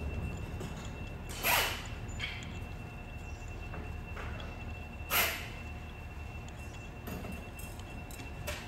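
Threaded studs being slid one at a time through the bolt holes of a two-stage cycloidal pinwheel reducer housing, metal on metal: two sharp metallic scrapes, about a second and a half in and again after five seconds, with a few fainter clinks, over a steady low hum.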